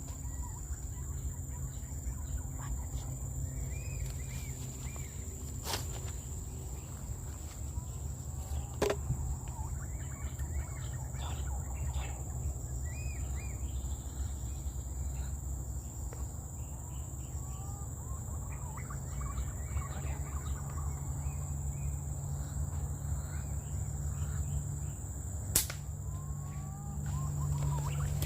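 Birds chirping and whistling over a steady high insect drone and a low rumble, broken by three sharp shots from an air rifle: about six and nine seconds in, and near the end.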